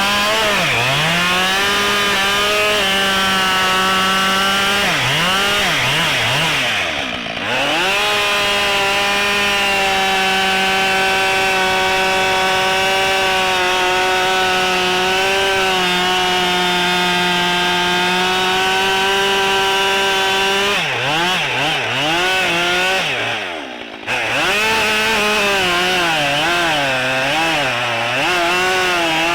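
Husqvarna 572 XP two-stroke chainsaw cutting through a big ash log at full throttle. The engine pitch holds steady for long stretches, then sags and wavers as the chain bogs in the wood, and the throttle is let off briefly twice, about a quarter of the way in and again near the end.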